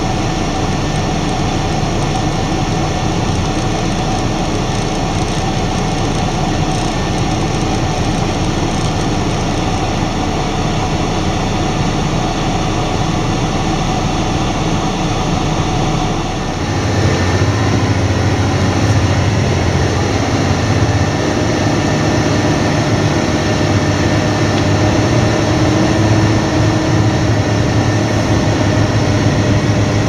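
Claas Lexion combine harvester running steadily while harvesting. About halfway through, the sound changes abruptly to a louder, lower engine hum heard from inside the cab of a vehicle driving alongside the combine.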